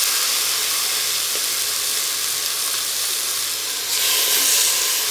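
Raw chicken pieces sizzling as they fry skin-down in a hot multicooker bowl with no oil, searing in their own fat. The sizzle swells briefly about four seconds in, as another piece is laid in.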